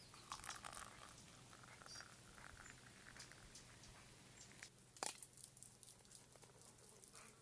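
Near silence, with faint scattered rustles and clicks and one sharper click about five seconds in.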